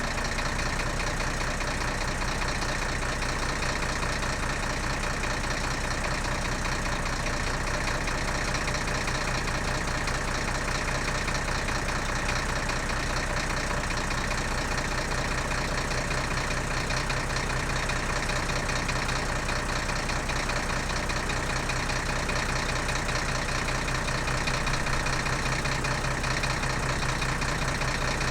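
Diesel vehicle engine idling steadily, with an even rapid clatter.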